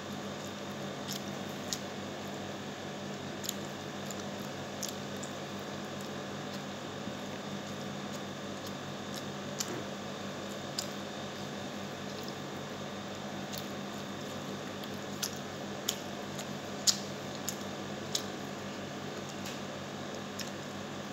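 Close-miked eating sounds of a person eating rice and pork by hand: soft, squishy chewing with scattered sharp mouth clicks and smacks, the loudest near the end. A steady low hum runs underneath.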